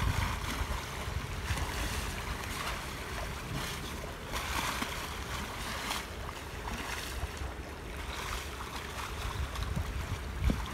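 Seawater splashing and sloshing around a ship's bulbous bow as sea lions swim and surface against it, the hiss swelling in irregular surges. Wind rumbles on the microphone underneath.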